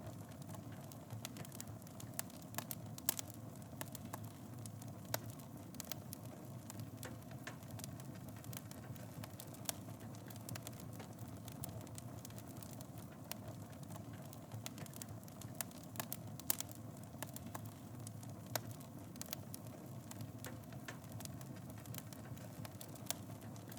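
Fire burning in a fireplace: a steady low hiss with irregular sharp crackles and pops of burning wood, a few louder pops scattered through.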